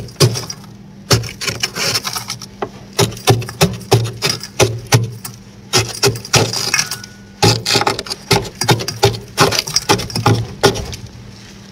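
Metal spoon scraping and chipping thick freezer frost off the freezer wall, a quick irregular run of crisp scrapes and crunches, several strokes a second.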